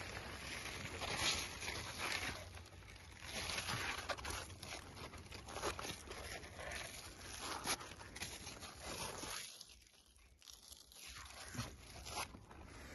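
Irregular rustling and crunching of cucumber vines and footsteps as someone moves between the rows, with a short lull about ten seconds in.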